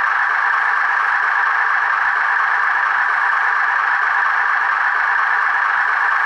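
HO-scale EAD railcar model's sound decoder playing a Poyaud diesel engine sound from the ESU library, idling steadily through the model's small speaker, which gives a thin, midrange-heavy drone.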